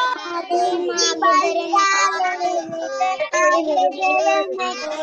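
Several children singing a Sinhala children's song together over a video call, their voices overlapping.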